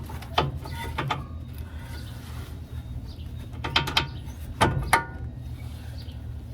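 Metal hand tools clinking and clanking against the steel tie rod: short metallic knocks with a brief ring, one near the start, a pair about a second in, and a tighter cluster around four to five seconds in.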